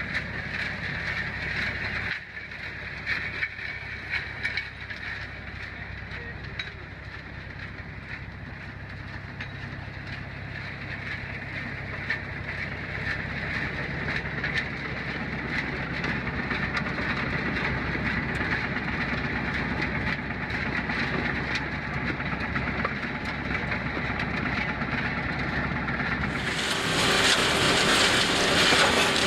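Komplet DS 1020 trommel screen running: a steady mechanical rumble with scattered knocks. About 27 seconds in, the sound abruptly turns louder and hissier.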